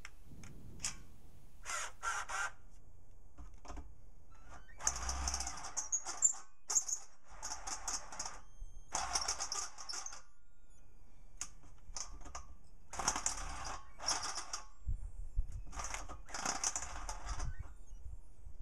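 Step drill bit cutting into the steel side wall of a beer keg, driven by a hand drill in about five separate grinding bursts of one to two seconds, with short pauses between, as the hole is opened out to about 3/4 inch.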